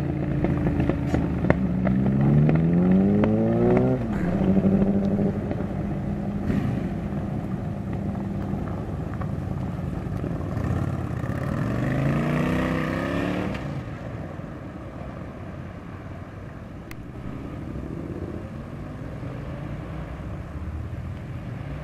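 Motorcycle engines accelerating as the bikes ride off, the engine note climbing and then dropping at a gear change about four seconds in. A second bike pulls away with another rising note around twelve seconds in, after which the engine sound is quieter.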